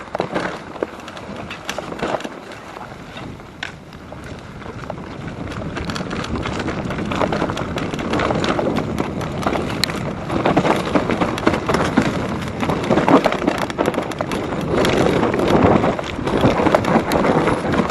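Mountain bike clattering and rattling over a rough downhill trail, with wind rushing over the microphone. The noise grows louder about six seconds in as the speed picks up.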